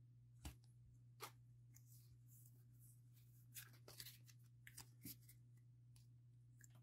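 Faint scattered ticks and soft slides of Pokémon trading cards being flipped through by hand, with a small cluster of them about halfway through, over a low steady hum.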